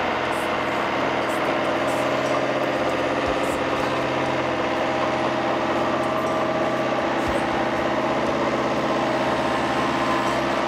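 Diesel engine of a red 70-65 crawler tractor running steadily at an even pitch.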